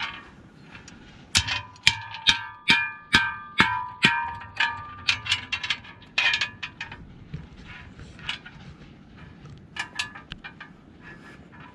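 A musical instrument played close by: a run of sharp, ringing notes, about two or three a second, that thins out and grows quieter after about six seconds.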